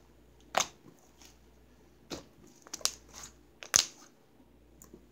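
Butter slime being pressed and stretched by hand, giving a handful of sharp crackling pops, the loudest a little before the end.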